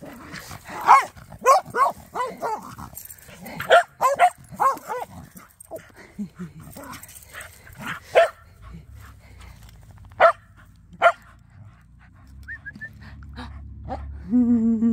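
A dog barking repeatedly: quick clusters of short barks in the first five seconds, then single barks spread out over the next several seconds.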